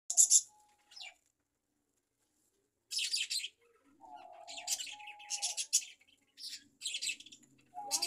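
Budgerigars chirping in short, high, scratchy bursts mixed with a few brief whistled notes. About a second in there is a pause of nearly two seconds, then the chirping comes thick and fast.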